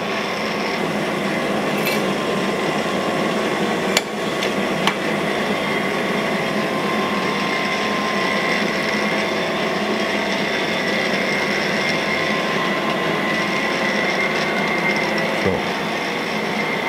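Cam grinding machine running, its wheel grinding the lobes of an FE Ford solid roller camshaft under flowing coolant: a steady grinding hiss over a constant machine hum, with a few sharp clicks around four to five seconds in. These are roughing passes, taking the lobes down toward 1.710 in heel to toe before a finish pass.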